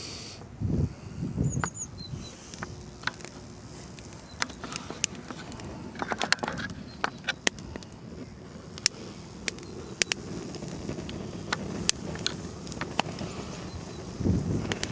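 Wood fire crackling in a brick rocket stove: irregular sharp pops and snaps over a low rushing sound.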